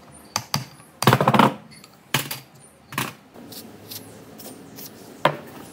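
Metal tools and parts clinking and knocking as they are handled, with a loud metallic rattle about a second in and a sharp knock near the end.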